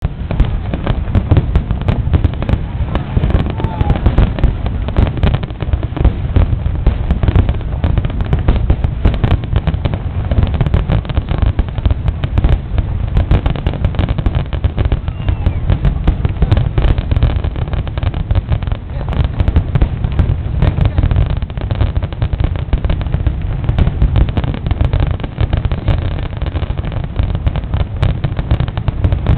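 Aerial fireworks display: a dense, unbroken barrage of shell bursts, many bangs overlapping every second, with deep low rumbling beneath them.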